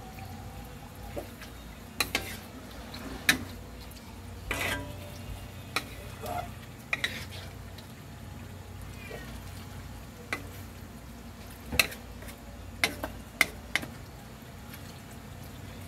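Spatula stirring pork pieces in a wok: sharp clicks and knocks of the spatula against the pan every second or two, with a few short scraping and squishing sounds and a faint sizzle of frying.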